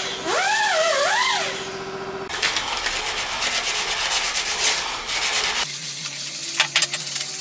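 Metal part being rubbed by hand on an abrasive disc laid on a flat tile, giving a rasping scrape as the face is lapped flat. A gliding, wavering melody ends in the first second and a half. Near the end, a low hum comes in with a few sharp clicks.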